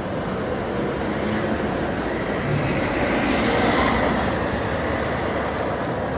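Steady outdoor din of a large crowd murmuring, mixed with street noise; it swells and brightens briefly around the middle.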